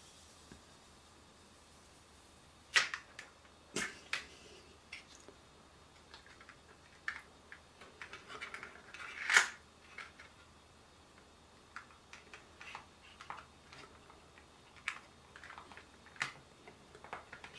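Scattered light clicks and taps of hard plastic as a glass screen protector is handled and set into a clear plastic alignment tray over the phone. There are two sharper clicks a few seconds in and a brief scraping rustle a little past halfway.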